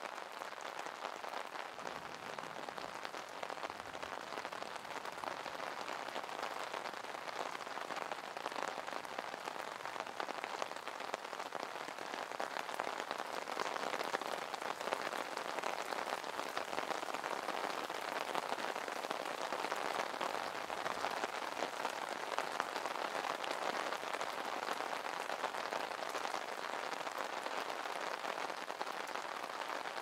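Steady rain falling on an umbrella, a dense, even spatter of drops that grows a little louder about twelve seconds in.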